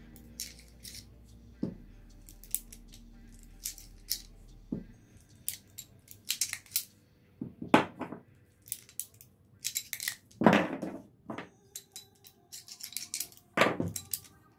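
Small metallic clicks and taps from a King Arms Colt Single Action Army gas airsoft revolver being unloaded: the cylinder turned through the open loading gate, shells pushed out with the ejector rod and set down on a wooden table. The clicks come irregularly, sparse at first, with a few louder knocks in the second half.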